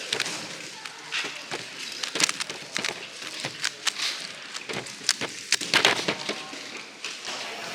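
A speedcube being turned: irregular runs of sharp plastic clicks as its layers snap round.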